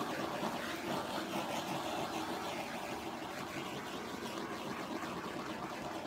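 Small handheld butane torch hissing steadily as it is passed over wet acrylic paint, with a faint steady hum underneath. The torch is running low on gas.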